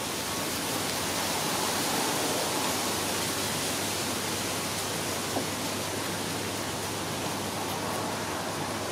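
A steady rushing noise, with one faint click about five seconds in.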